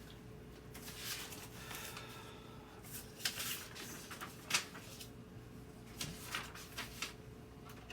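Scattered rustling and a few light knocks and clicks, as of objects being handled, over a faint steady hum.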